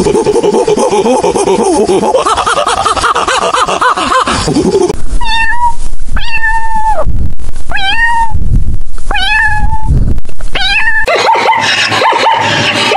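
A kitten meowing five times in a row, high-pitched, each meow rising at the start and then held. For the first few seconds before it, a lower, rougher animal call wavers. Near the end comes a quick run of short calls from another animal.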